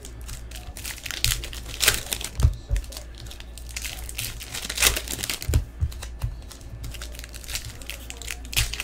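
Baseball trading cards being flipped and shuffled by hand, with crinkling from the opened foil pack wrappers: irregular crackles and clicks.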